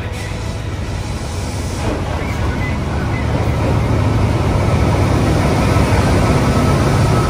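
KTM diesel locomotive 23109 running as it rolls along the platform toward the listener and passes close by, getting steadily louder: a low steady engine hum under the rumble of wheels on the rails.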